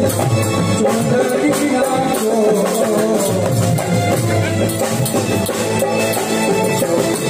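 Live raas kirtan devotional music: a keyboard melody over drums and a rattling shaker-like percussion, keeping a steady dance beat.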